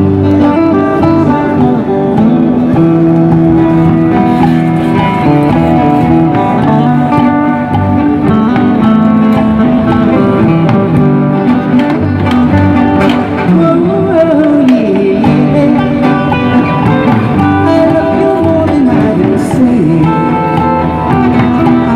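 A live band playing an oldies pop tune: electric guitar and drum kit with a steady beat, and a melody line that slides in pitch.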